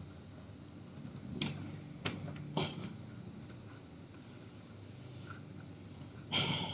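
Faint, scattered computer keyboard taps and mouse clicks, a few separate strokes spread over several seconds, with a louder one near the end.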